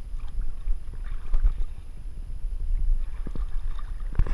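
Wind rumbling on the camera's microphone, with a few faint knocks and handling noise.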